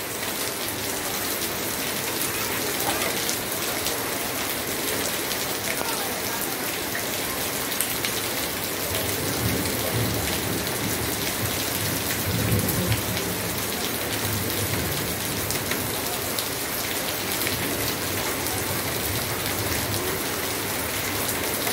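Rain pouring steadily onto standing floodwater on a paved lane: a dense, even hiss of drops splashing into the water. A low rumble swells and fades about halfway through.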